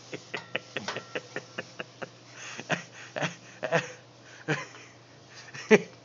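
A ladder knocking and clicking under a man's feet and hands as he climbs it: quick light clicks at first, then heavier knocks about half a second apart, and one sharp knock near the end.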